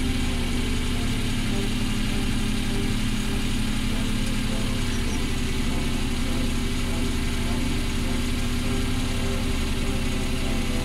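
Suzuki Every DA62V's 660 cc three-cylinder engine idling steadily, heard from inside the cab by the driver's footwell.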